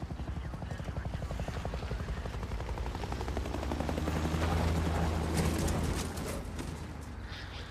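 Helicopter rotor chop: a rapid, even beating over a low engine drone. It grows louder through the first half, is loudest a little past the middle, then fades.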